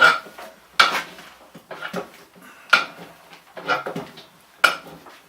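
Metal tyre-fitting tools clanking against the wheel and tyre changer as a motorcycle tyre is levered onto its rim: about five sharp metallic clanks, each with a short ring, roughly a second apart.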